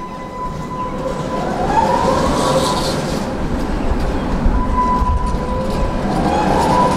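Electric tram going past, its wheels rumbling on the rails. A whine rises in pitch twice, once about a second in and again near the end, over a steady high tone.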